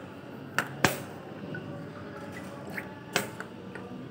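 Sharp clicks of chess pieces being set down on the board and the chess clock being hit during a fast blitz game: a quick pair about a second in, the second the loudest, then another click near the end.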